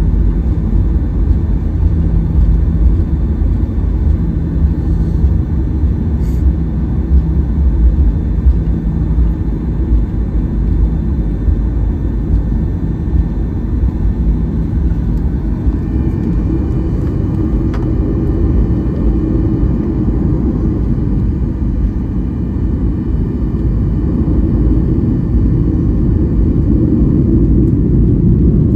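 Cabin noise of a Boeing 737-800 taxiing: a steady low rumble from its CFM56 engines at taxi power and its wheels on the taxiway. About halfway through, a faint higher whine comes in.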